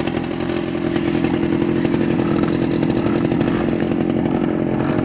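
Two-stroke engine running at a steady speed, a rapid buzzing that gets a little louder about a second in.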